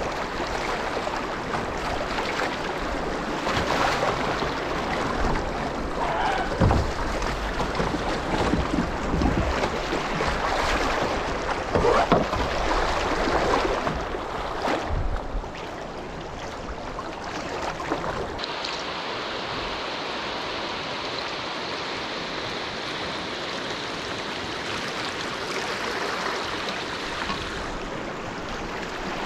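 Shallow river water rushing and rippling over riffles around a kayak, a steady hiss with some low thumps in the first half. About two-thirds through, the low rumble drops away and a steadier, higher hiss remains.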